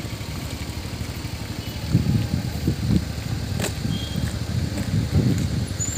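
Road traffic: a motor vehicle running close by, its low rumble surging unevenly from about two seconds in, with a single sharp click midway.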